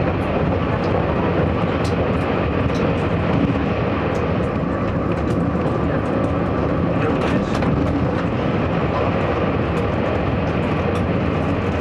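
Steady running noise inside a DR3000 diesel multiple-unit railcar on the move: the rumble of the diesel engine and the wheels on the rails, with scattered sharp clicks and rattles throughout.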